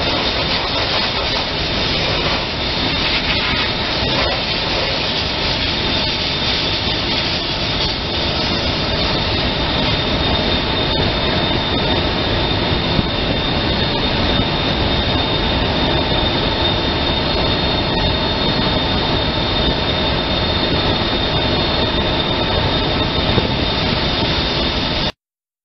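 Abrasive dry-blasting nozzle running continuously: a loud, steady hiss of compressed air and grit with a thin high whistle on top. It cuts off suddenly near the end.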